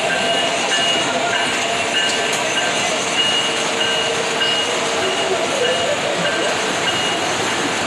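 Model trains running on the layout's track: a steady whir and rattle of wheels and motors, with faint short high-pitched tones coming and going.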